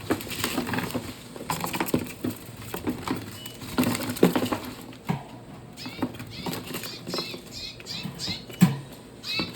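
Red siskins fluttering and scrabbling in a cage as they are caught by hand, with knocks and rustling, then a run of short, quick chirps in the second half.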